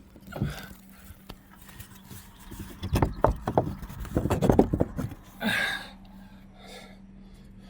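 Hands searching a tree for a hidden geocache: a cluster of knocks and rustles, densest a few seconds in, followed by a short breathy hiss.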